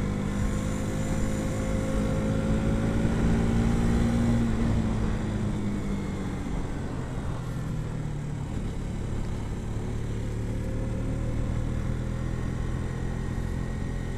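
KTM RC 200's single-cylinder engine running as the bike is ridden, its note dropping about five seconds in, then holding steady.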